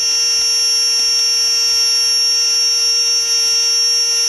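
Miniature steam locomotive's whistle blowing one long, loud, steady high-pitched blast.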